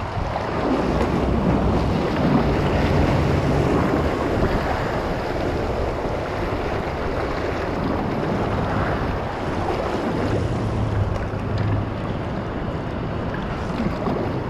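Rushing whitewater of a class II river channel around a kayak, mixed with wind buffeting the action camera's microphone. The sound is a steady low rumble.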